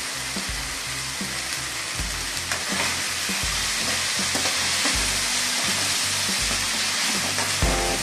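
Mint leaves, dals, garlic and green chillies sizzling in oil in an aluminium kadai, stirred with a metal spoon. Background music with a steady bass beat runs underneath.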